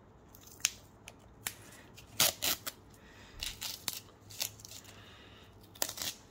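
Hands peeling tape off rigid plastic trading-card top loaders: a string of irregular sharp clicks and crackles of tape and plastic, the loudest a little after two seconds in and again near the end.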